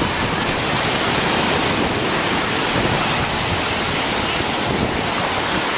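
Ocean surf breaking and washing up the shore, a steady rushing hiss.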